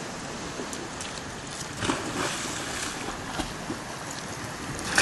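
Sea surf washing over rocks with a steady hiss, broken by a few louder splashes as a Rottweiler goes into the water.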